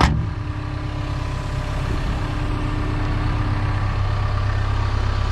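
A Hyundai HX145 LCR excavator's diesel engine idling steadily, with a side compartment door shutting with a single clunk just at the start.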